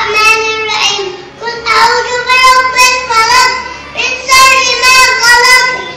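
A young boy's voice chanting a prayer recitation aloud in a high, melodic voice, in three drawn-out phrases with short breaths between them.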